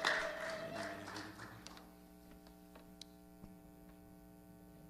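A worship song dying away: the last rhythmic claps and a held musical note fade out over about the first second and a half, leaving a steady electrical hum from the sound system with a few faint ticks.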